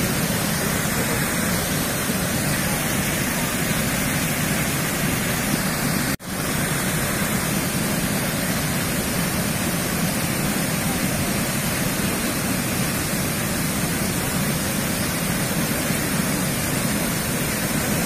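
Steady rush of water falling at Shiraito Falls, the waterfall's even roar filling all pitches, with the sound dropping out for an instant about six seconds in.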